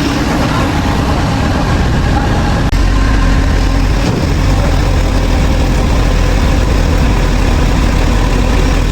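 Heavy vehicle engine idling steadily with a low rumble, broken by a brief dropout a little under three seconds in.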